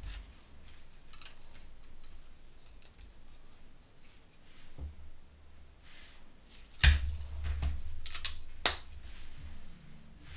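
Plastic Lego bricks clicking as they are handled and pressed onto a door assembly: scattered light clicks, with a few louder snaps in the second half.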